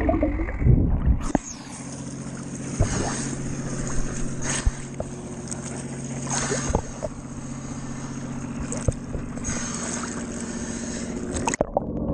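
Water splashing and lapping at the surface beside a boat hull as a swimmer comes up, with scattered sharp splashes over a steady low hum. A muffled underwater rumble at the start gives way to this about a second in and comes back near the end as the swimmer goes under again.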